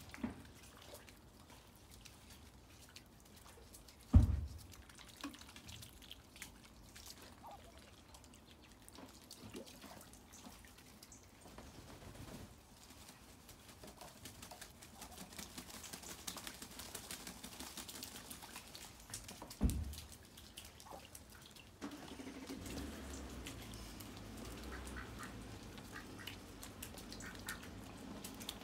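Faint dripping of rainwater on a wet patio, scattered small ticks, broken by two sudden thumps about four seconds in and again near twenty seconds in.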